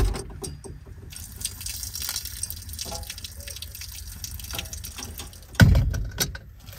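Water poured out of a cooking pot, splashing and dripping: hot pasta water being drained. A loud thump comes near the end.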